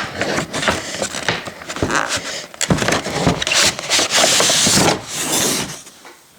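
A model locomotive's box and packaging being handled and opened by hand: scattered taps and clicks, with a longer sliding, rustling rub from about three and a half to five and a half seconds in.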